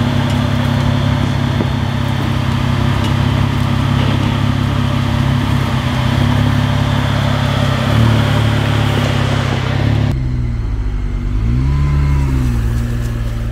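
Jeep Wrangler JK engine running at low, steady revs while crawling down a rough dirt trail. About ten seconds in the sound turns duller, and the engine revs up and back down once.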